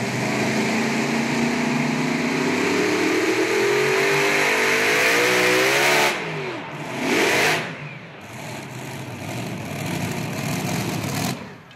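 Multi-engine modified pulling tractor running flat out under load, its pitch climbing steadily. About six seconds in the revs drop sharply, with a short rev burst about a second later, then the engines run lower until the sound cuts off near the end.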